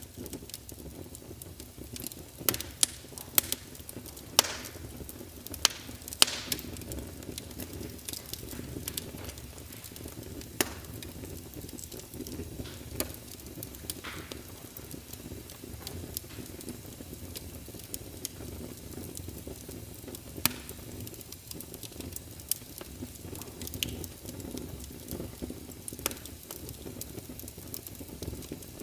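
Wood fire in a fireplace crackling, with sharp pops at irregular moments, several of them loud, over a steady low hiss of rain.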